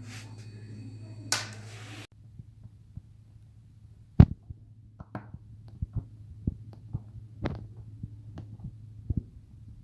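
Scattered knocks and clicks of tools and metal parts being handled on a washing machine under repair, the loudest about four seconds in. A steady low hum runs underneath and drops abruptly about two seconds in.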